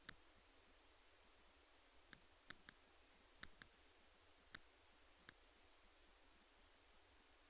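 Eight sharp, separate clicks at uneven intervals, several close together in the middle, against near silence.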